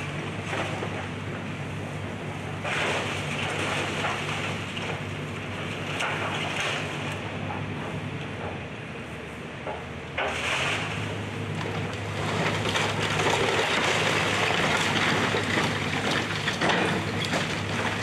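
Excavator engine running steadily under load, with crunching and crashing of broken wood and debris as a house is torn down. The breaking noise grows louder and denser from about ten seconds in.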